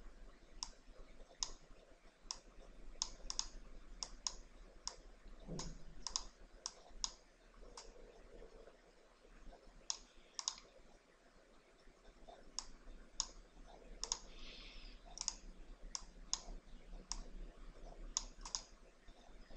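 Faint, irregular clicks of a computer mouse, some in quick pairs, over a low steady hum.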